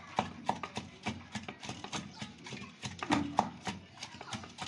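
Wooden pestle pounding green leaves in a wooden mortar: steady dull knocks, about three strokes a second.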